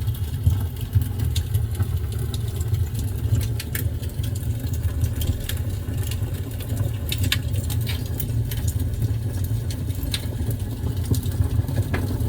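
Recorded crackling-fireplace soundscape from the Kia EV6's relaxation sound system, played through the cabin speakers: a steady low rumble of fire with scattered sharp crackles and pops.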